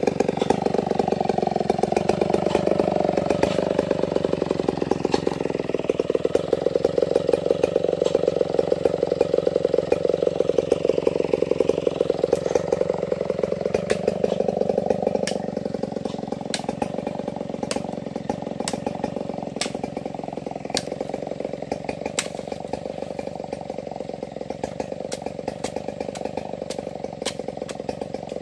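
Stihl 070 two-stroke chainsaw running unattended at idle with its bar pinched in the cut, the engine note wandering slowly up and down. From about halfway on it grows fainter, and sharp hacking strikes of a blade on wood come about once a second.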